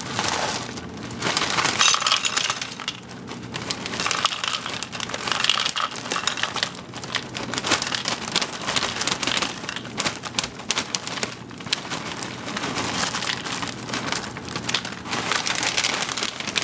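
Krave cereal pieces poured from the plastic bag liner into a bowl: a dense rattling patter of many small hard pieces, swelling and easing as the pour goes on, with the bag crinkling.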